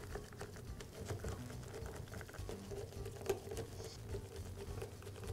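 Faint clicking and scraping of a screwdriver turning screws by hand into the aluminium gear housing of a Milwaukee reciprocating saw, with a sharper click about three seconds in.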